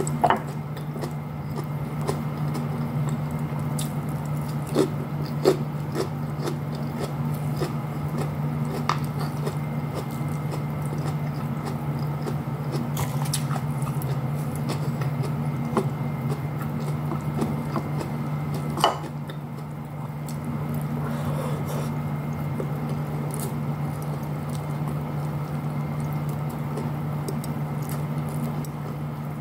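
Close-up eating sounds of a person eating with her fingers: chewing and wet mouth smacks, with scattered small clicks and taps against a plate. A steady low hum runs underneath.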